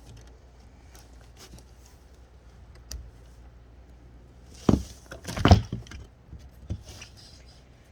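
Knocks and rattles of a nailed sign being pulled apart: a sharp knock about four and a half seconds in, a louder cluster about a second later, and another knock near the end.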